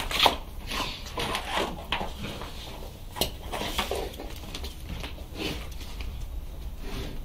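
Two pit bull–type dogs jumping at and tugging a rope lure: irregular scuffling on tile and short bursts of dog noise, with a sharp knock about a quarter second in.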